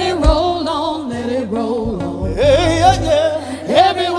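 Live worship band playing, with a lead vocal held out without clear words, its pitch sliding up into long wavering notes over a steady bass and low drum thumps.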